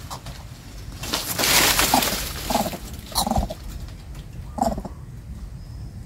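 A loud burst of rustling about a second in, then four short, low bird calls spaced over the next few seconds, heard while a coucal hunts a pigeon chick in the undergrowth.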